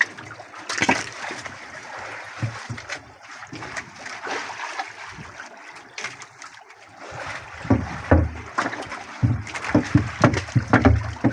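Water splashing and trickling in the bottom of a small outrigger fishing boat's hull around a freshly caught squid. From about seven seconds in, louder low thumps and knocks join it.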